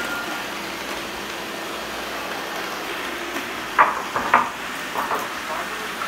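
A group of robot vacuum cleaners running together, a steady whirring hiss of their motors and brushes. A few short voice-like sounds break in about four and five seconds in.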